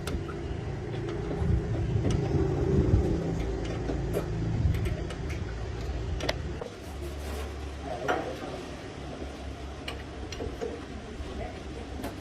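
A large truck engine running with a low, steady rumble that settles into an even lower drone about six and a half seconds in, with scattered light clicks.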